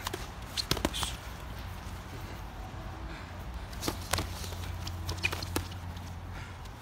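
Boxing gloves smacking against gloves, headgear and bodies during sparring: scattered sharp hits, several in quick succession about a second in and a few more later, with shuffling footsteps on grass, over a steady low hum.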